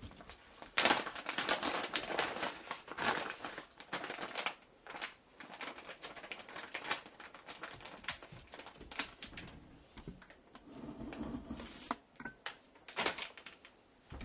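Shiba Inu puppy playing on a wooden floor: its claws and a hard chew bone make quick, irregular clicks and taps.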